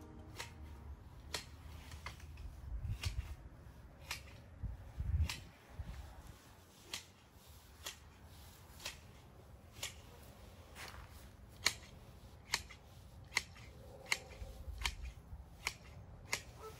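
Hand shears snipping, about one sharp snip a second, as the base of a clipped shrub is trimmed close to the ground. A faint low rumble runs underneath.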